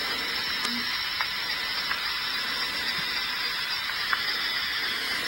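Police scanner stream playing through an iPhone's speaker, giving a steady hiss of radio static between transmissions, with a few faint ticks.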